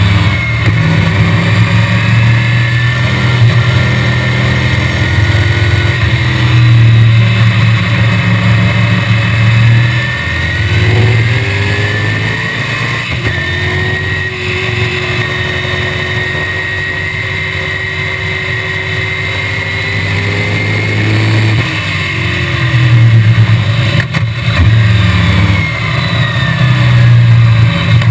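1965 BTM Cheetah roadster's Chevrolet small-block V8 at racing speed, heard from the open cockpit: the engine note climbs and drops again and again as it accelerates and shifts through corners, with a steadier, slightly quieter run in the middle, over a constant rush of wind noise.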